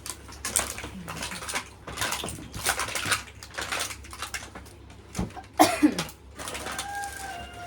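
Paper and plastic gift packaging rustling and crinkling as presents are unwrapped and handled, in irregular bursts. A short voice-like squeal rises out of it about five and a half seconds in, and a thin steady tone sounds briefly near the end.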